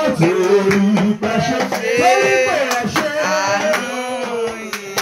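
Men singing a worship song over a hand drum beating a steady rhythm, about two to three strokes a second.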